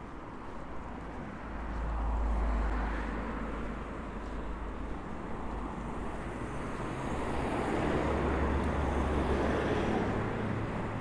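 Road traffic: vehicles passing along a street, swelling louder about two seconds in and again in the second half over a steady traffic hum.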